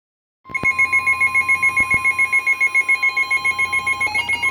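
NOAA Weather Radio alert: the steady warning-alarm tone that signals a warning, with a receiver's high-pitched alarm beeping rapidly over it, about six or seven beeps a second. The tone starts about half a second in and dips in pitch for a moment about four seconds in.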